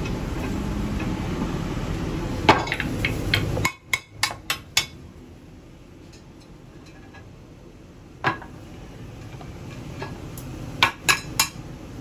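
Cast-iron sizzler plates knocking and clinking as they are handled on their wooden bases: short clusters of sharp metal knocks. At the start a low steady rumble from the lit gas burner runs under them, then stops abruptly about four seconds in.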